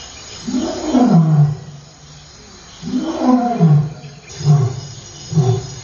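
Male lion roaring: two long roars that fall in pitch, followed by a run of short roars about a second apart.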